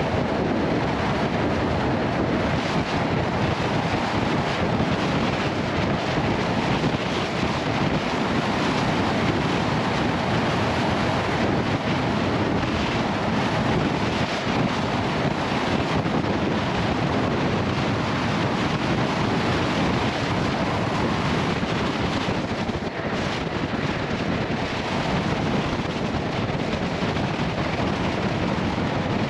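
Wind rushing steadily over a GoPro microphone that has no windscreen, on a motorcycle riding at highway speed. Beneath the wind is the road and engine noise of the 2021 Yamaha XSR 900.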